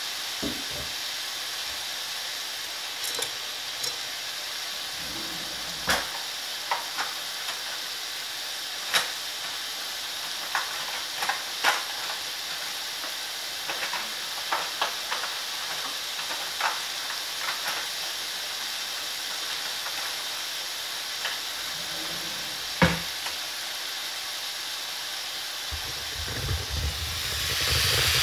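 Slices of lean pork searing in oil in a frying pan: a steady sizzle with scattered sharp pops, as the meat's surface is sealed so its juice stays in. Near the end the sizzle grows louder and a low rumble comes in.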